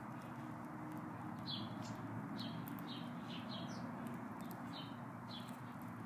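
Sparrows chirping: a string of short, slightly falling chirps, about two a second, starting about one and a half seconds in, over a steady low hum.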